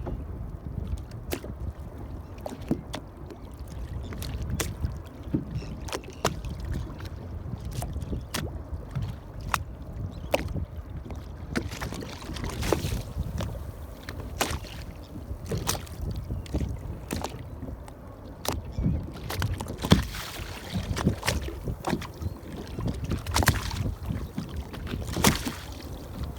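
Small waves lapping and slapping against the hull of an anchored boat, irregular sharp slaps over a steady low rumble of water and wind.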